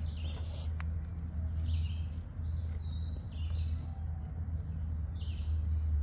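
Wild birds chirping several times in short calls, over a steady low rumble.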